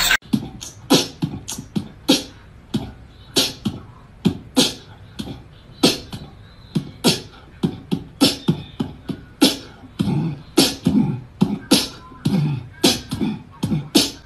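Rhythmic percussive beat of sharp snaps and low thumps, about two to three hits a second, in an uneven pattern.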